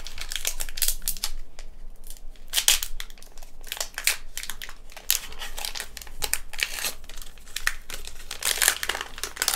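Foil wrapper of a Pokémon card booster pack crinkling and being torn open by hand, in a run of short, sharp rustles.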